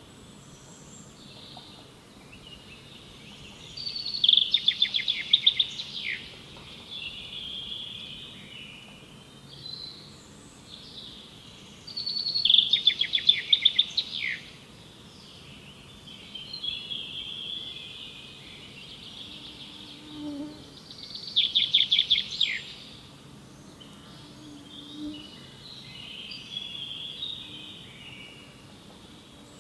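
Forest birdsong: one songbird repeats a loud, quick trilled phrase three times, about nine seconds apart. Softer calls from other birds fill the gaps, over a faint steady background hiss.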